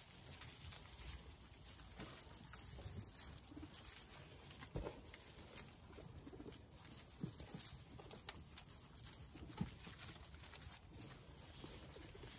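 Guinea pigs eating: faint scattered crunching of carrot slices and rustling of grass and straw, with a few brief soft low calls.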